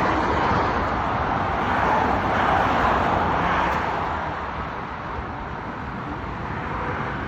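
Steady road-vehicle noise, an even rushing sound with no clear engine note, easing slightly about four seconds in.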